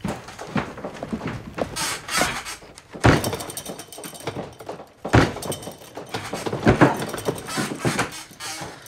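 A run of thuds and knocks from office desk work, with lighter clicks between; the loudest thuds come about three, five and seven seconds in.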